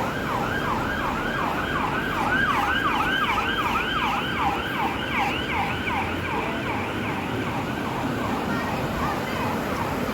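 Emergency vehicle siren on a fast yelp, sweeping up and down in pitch several times a second, loudest a couple of seconds in and fading away in the second half, over a steady rushing background noise.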